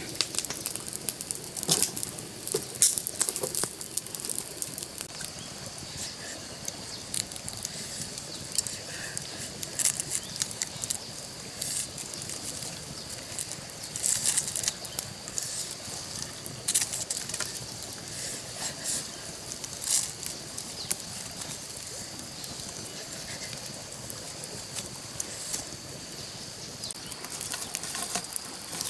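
Wood fire crackling, with scattered sharp snaps and pops from burning twigs and a green bamboo cooking tube, and some rustling and knocking as sticks and the tube are handled. A steady high hum runs underneath.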